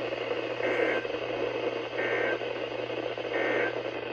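NOAA Weather Radio broadcast sending three short bursts of Emergency Alert System digital data, about a second and a third apart, over steady radio static and hum. These are the EAS End-of-Message code that closes the Special Marine Warning alert.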